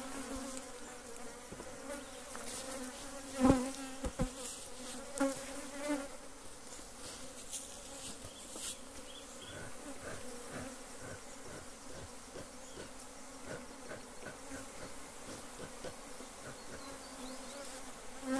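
Honeybees buzzing around an opened hive, a steady hum. A couple of sharp knocks from hive equipment being handled, the loudest about three and a half seconds in.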